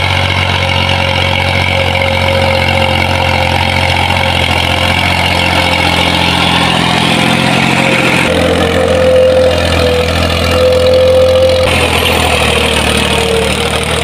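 Massey Ferguson tractor's diesel engine running steadily under load while pulling a tine cultivator through the soil. Its sound shifts abruptly about eight and again about twelve seconds in.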